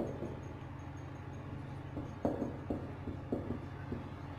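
Marker pen writing on a whiteboard: a run of short, irregular squeaks and scrapes as letters are drawn, over a steady low hum.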